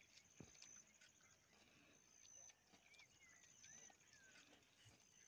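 Near silence: faint outdoor ambience with scattered soft clicks and a few faint short whistles that rise and fall.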